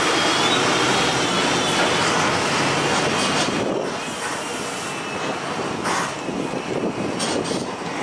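Heavy construction machinery running: loud, steady machine noise with a high wavering squeal, easing off about halfway through, then a few sharp metallic clanks near the end.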